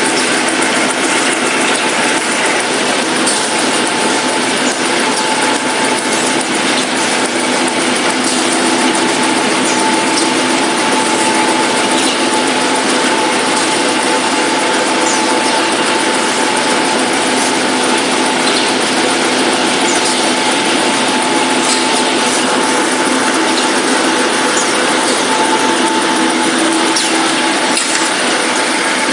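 Semi-automatic facial tissue production line running: a loud, steady machine noise with a constant tone sounding through it and faint scattered ticks.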